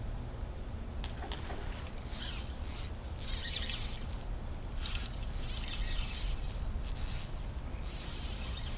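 Spinning or casting fishing reel worked in bursts, its gears whirring and clicking as line comes in or goes out, from about two seconds in until near the end. A steady low rumble runs underneath.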